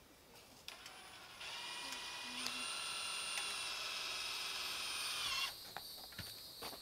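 Power drill running steadily for about four seconds with a high whine that steps up slightly in pitch partway through, then stopping, followed by a few light knocks.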